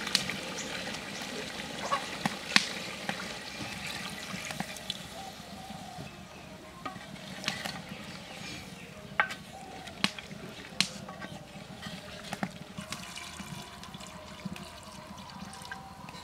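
Duck curry with coconut slices sizzling in an aluminium pot while a metal spatula stirs it, clinking and scraping sharply against the pot several times, and water being poured into the pot.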